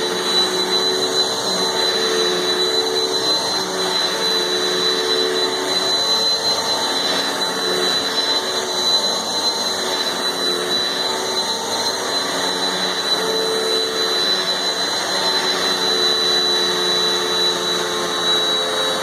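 Eureka PowerSpeed lightweight upright vacuum cleaner running steadily, its motor noise topped by a steady high-pitched whistle. It is by the owner's account the noisiest vacuum she has run, 'whistling crazy'.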